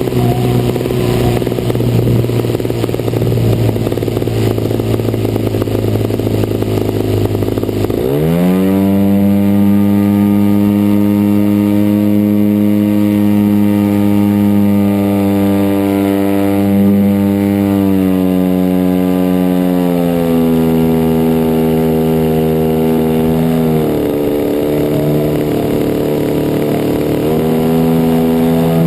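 DLE 55cc single-cylinder two-stroke petrol engine of a large RC model aircraft running, its pitch jumping sharply higher as the throttle is opened about eight seconds in. It holds there, eases lower in steps later on, and picks up again near the end.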